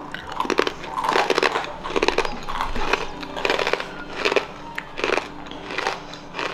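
Person biting into and chewing a crisp chip topped with dip: a steady run of crunches, two or three a second.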